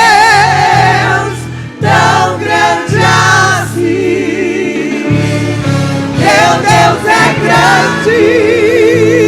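Gospel vocal group singing with band accompaniment, ending the worship song with long drawn-out vocal lines and vibrato over a bass line. A final note is held with vibrato near the end.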